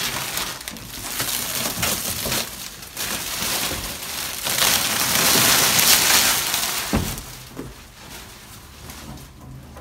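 Clear plastic wrapping crinkling and rustling as it is pulled off and handled, loudest around the middle, then a single knock about seven seconds in.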